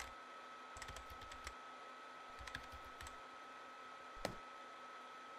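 Computer keyboard typing in three quick flurries of keystrokes, then a single sharper click a little past four seconds in as the submit button is clicked, over a faint steady hum.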